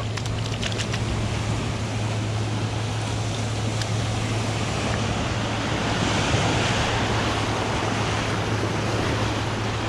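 Sea waves washing against the shore, with one wave surging more strongly about six seconds in. Wind is on the microphone, with a steady low hum underneath.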